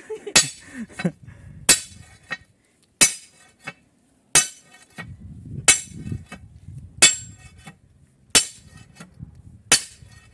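Sledgehammer striking a hand-held steel drill bar against granite, hand-drilling a blast hole: eight sharp metallic clinks, one about every 1.3 seconds, each with a short ring.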